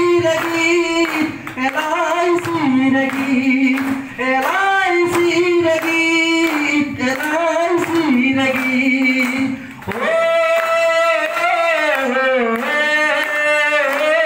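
A man singing a song into a microphone with held, gliding notes, while the audience claps along in a steady rhythm.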